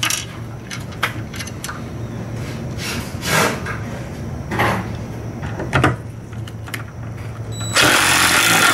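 Cordless DeWalt impact driver driving a number 14 screw into the stop arm frame on the bus body, running in a few short spurts. Near the end it hammers loudly for about a second and then stops suddenly: the ratcheting that shows the screw is tight.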